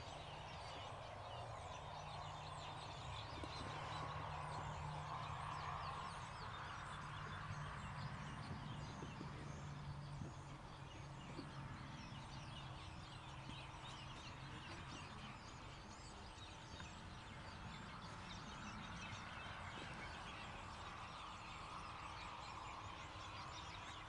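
Many birds chirping, with a low steady hum underneath that eases off about halfway through.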